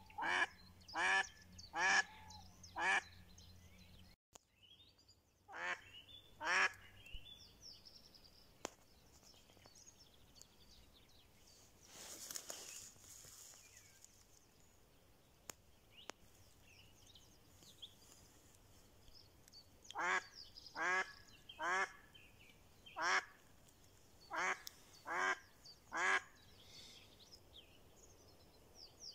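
Live decoy hen duck of the mallard kind quacking in short runs: four quacks, then two, then a longer run of about eight near the end. This is the calling meant to lure wild drakes to the decoy.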